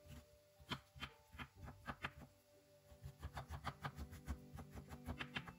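Chef's knife chopping fresh ginger on a bamboo cutting board: a quick, uneven run of blade strikes on the wood, with a short pause about two seconds in before a faster burst of strikes. Faint background music plays underneath.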